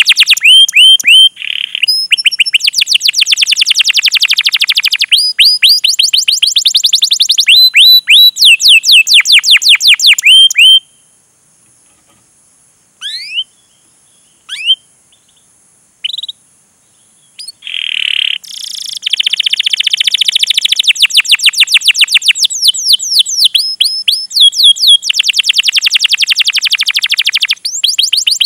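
Domestic canary singing: long rolling trills of rapid, sharp repeated 'cuit cuit' notes. The song breaks off for several seconds in the middle, leaving only a few faint chirps, then the trilling resumes.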